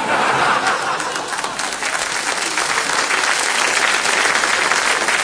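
Theatre audience applauding, starting suddenly and going on steadily, a dense patter of many clapping hands.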